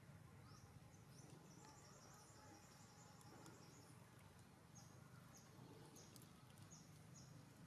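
Near silence: faint outdoor ambience with a steady low hum, and a run of short, high chirps repeating, quicker at first, then about two a second.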